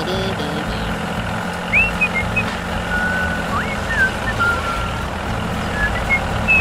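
Diesel tractor engine running steadily, with short high chirps and rising whistled swoops over it.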